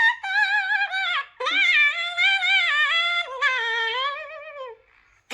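A high-pitched, warbling singing voice from a funny sound clip, holding long wavering notes in three phrases, each lower in pitch than the last, and breaking off shortly before the end.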